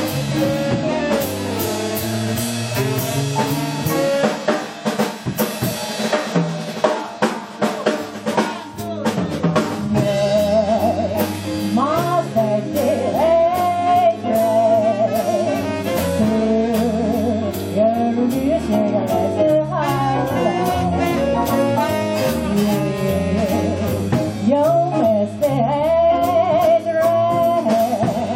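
Live jazz band: the drum kit plays alone at first with snare and cymbal hits, then about ten seconds in a woman's singing voice comes in over the band.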